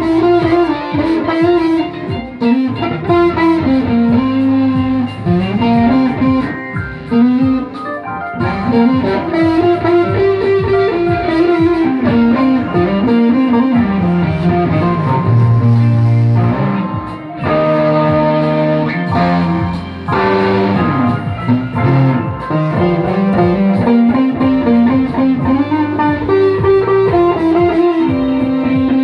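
Music with electric guitar: a melodic guitar line over a steady accompaniment.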